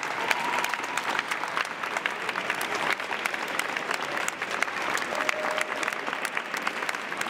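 Audience applauding: many hands clapping, dense and steady.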